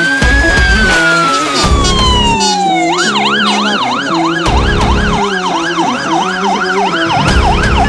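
Fire engine siren in a slow wail that rises and then falls, switching about three seconds in to a fast yelp of quick up-and-down sweeps, with music underneath.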